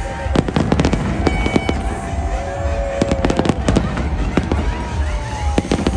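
Fireworks display: rapid, irregular bangs and crackles over a continuous deep rumble of bursting shells.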